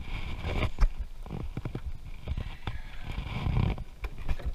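Scattered knocks and bumps of gear being handled in a small boat, with a sharp knock about a second in and some low rumbling.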